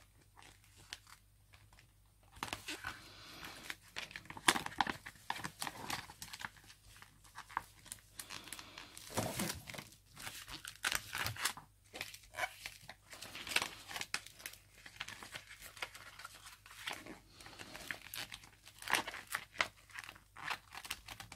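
Thin decoupage paper rustling and crinkling under the hands as it is smoothed and pressed down onto an envelope: irregular scratchy rubs and crackles that begin after about two seconds of quiet.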